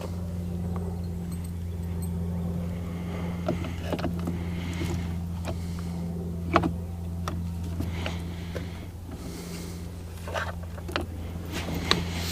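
Scattered clicks and knocks of a boat's throttle remote control being handled and pried apart by hand, over a steady low hum.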